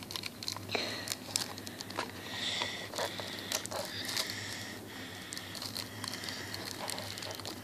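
Thin plastic wrapper crinkling and rustling in the hands, with many small irregular clicks, as a drinking straw is worked back into it.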